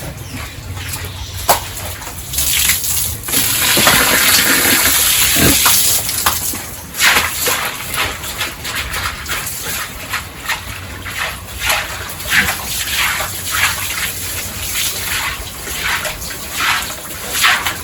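Pigs in a pen giving short squeals and grunts throughout, with a few seconds of water gushing, as when a pen is hosed, a couple of seconds in.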